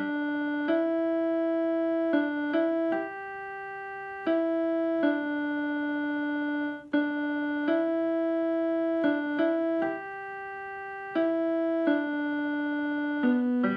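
Electronic keyboard playing a slow hymn tune in held chords, each chord sustained without fading and changing every second or so.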